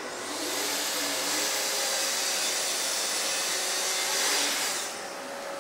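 Festool plunge-cut circular saw running on its guide rail and cutting through a wooden panel: a high motor whine over the cutting noise, with a dust extractor drawing through the hose. About five seconds in the blade clears the board and the noise drops to the steady hum of the machines.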